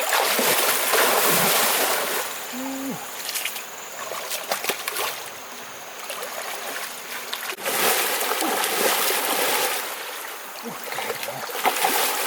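Shallow river water splashing and sloshing as hands slap and churn it to catch fish, in two loud spells, one at the start and one from about halfway, with quieter splashing between.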